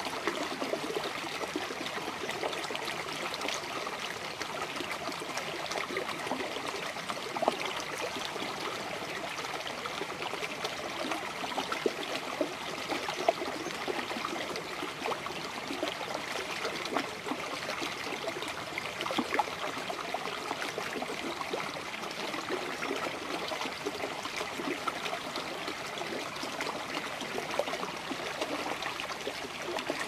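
A brook flowing and babbling steadily, with a few brief louder splashes.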